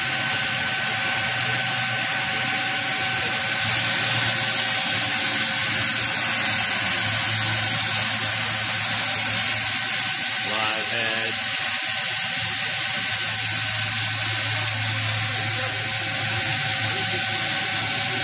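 Doosan 700XLY CNC lathe turning a large metal workpiece under flood coolant: a steady hiss of coolant spray over a constant machine whine and a low hum.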